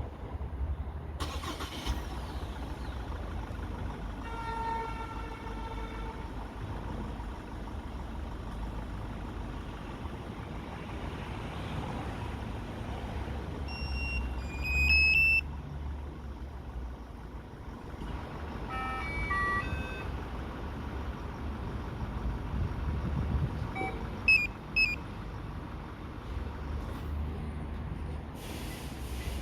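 Electronic beeps and short melodies from an Easycar E9 remote-start car alarm being operated: a held tone early on, a loud rising run of notes near the middle, a quick cluster of notes a few seconds later and two sharp chirps near the end, over a steady low rumble.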